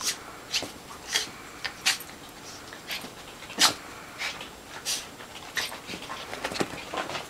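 A toy poodle and a German Shepherd at rough play, making short, sharp yaps and huffs at an irregular pace of about one or two a second. The loudest comes about halfway through.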